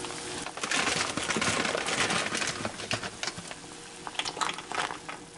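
Pot of water at a boil on the stove for pasta, bubbling and crackling with many quick pops, louder from about half a second in.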